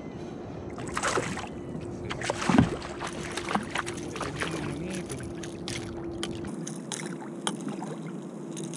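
Water sloshing and splashing around a fishing kayak as a small hooked fish is reeled in and thrashes at the surface beside the hull, with scattered clicks and knocks from the tackle and hull. Louder splashes come about one second and two and a half seconds in, over a faint steady hum.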